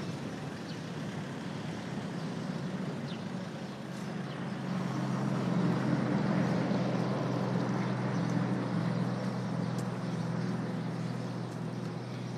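Steady low mechanical drone over an even hiss, a little louder from about the middle.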